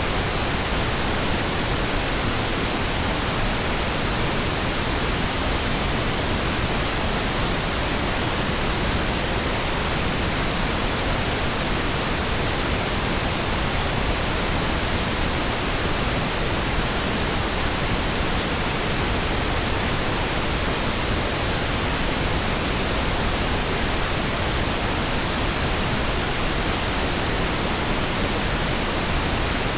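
Pink noise: a steady, even hiss spread across all pitches, with no changes or events.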